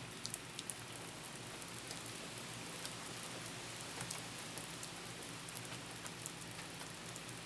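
Soft steady rain, an even hiss with scattered drops ticking on a surface.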